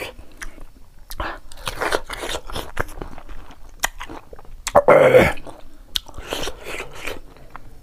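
Close-up chewing of a crisp bite of raw green mango with salt and king chilli: wet, crunching bites, repeated irregularly. About five seconds in there is one short, louder vocal sound from the eater.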